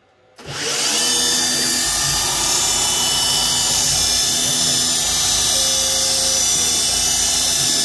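CNC mill's high-speed spindle running an engraving cutter into a clamped round bar, a steady high whine that starts abruptly about half a second in. Shorter humming tones come and go over it.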